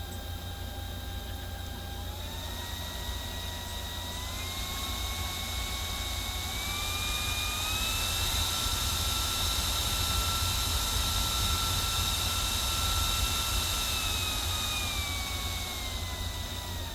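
GOOJODOQ cooling fan running with a whirring whine that steps up in pitch in stages, holds high, then falls back near the end as its speed is raised and lowered. A steady high whine and an airy hiss run under it.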